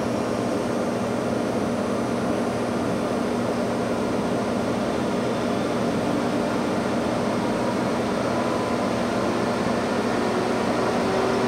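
Okamoto CNC surface grinder running with its grinding spindle on the high winding of its two-range motor, spinning at about 2700 RPM: a steady hum with a faint extra tone coming in near the end.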